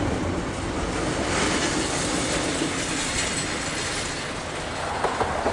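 Double-stack intermodal freight cars rolling past on steel wheels, clattering over the rail joints. The rolling noise eases toward the end as the last car goes by, with a few sharp clanks about five seconds in.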